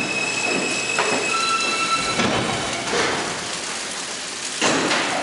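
R160B subway train coming to a stop at the platform: a high steady whine from the train fades out about two seconds in, leaving a rushing noise. Near the end a sudden loud burst of noise sets in as the train stands.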